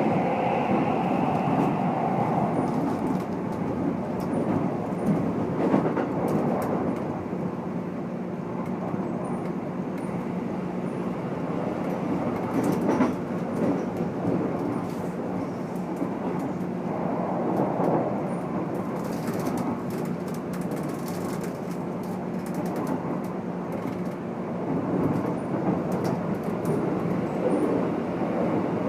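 Keikyu New 1000 series electric train (set 1449, Toyo IGBT VVVF inverter with MB-5121-A traction motors) running at speed, heard from inside car DeHa 1449. Steady wheel-on-rail rumble with occasional rail-joint clacks. The motor and inverter whine is heard in the first second or two, then fades.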